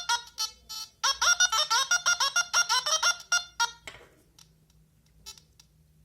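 Electronic beeps from a Nokta Makro Simplex metal detector's speaker: a few short tones, then a quick run of rising chirped notes like a jingle that stops about four seconds in, followed by a few faint clicks. This is the detector's sound output through its speaker, here the replacement one.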